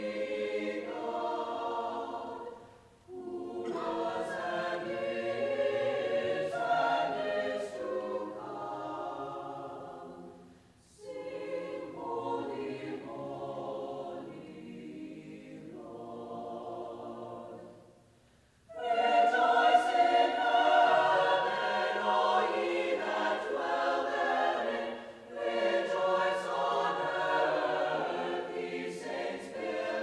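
Mixed-voice choir singing a sacred choral piece, in phrases broken by short rests, swelling to its fullest and loudest in the last third.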